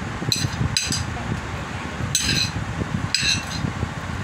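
Metal spoon clinking against a plate as fruit is scooped from it into a bowl: several short, ringing clinks spaced irregularly, over a steady low background hum.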